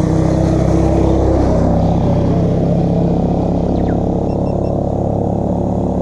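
Motorcycle engine running at low road speed, its revs dropping about a second and a half in and then holding steady.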